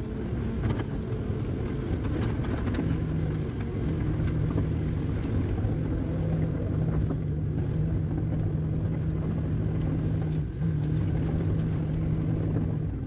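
Tracked excavator's diesel engine running under load, heard from inside the cab as the machine swings and travels on its tracks. A steady hum sets in about three seconds in, over a low rumble with light rattles.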